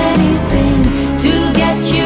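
Background pop song: a sung vocal melody over steady instrumental accompaniment.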